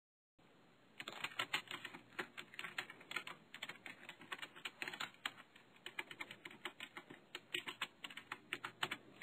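Computer keyboard typing: a fast, irregular run of key clicks over a faint hiss, starting about a second in.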